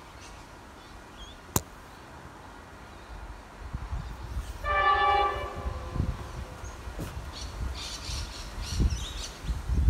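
A train horn sounds once about halfway through, a short chord of several notes lasting under a second, over a low uneven rumble that builds from a few seconds in.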